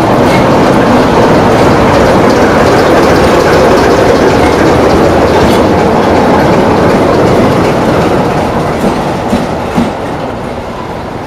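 CFR Class 60 'Sulzer' diesel-electric locomotive with its Sulzer V12 diesel engine, running light during a shunting move. The loud engine noise and rolling wheels pass close by, then fade as it moves away, with a few sharp clacks near the end.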